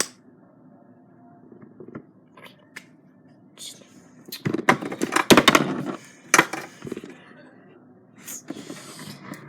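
Slime being squished and worked by hand: scattered small clicks, then a dense run of crackling clicks and pops about halfway through.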